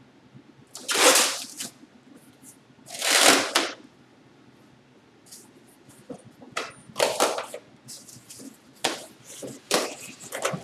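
Plastic packing bags rustling and crinkling as accessories are pulled out of a styrofoam shipping crate. There are two loud rustles about a second and three seconds in, then a string of shorter rustles and scrapes from about six seconds on.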